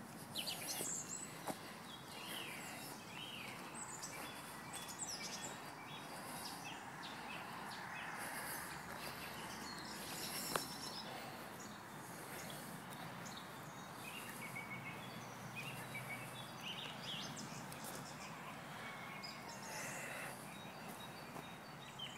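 Small birds chirping and whistling over a steady background hiss, with one sharp click about halfway through.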